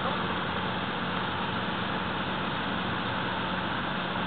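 Off-road 4x4 SUV engine running at a steady pitch, a low hum under a continuous hiss of water being churned and sprayed up in a muddy stream.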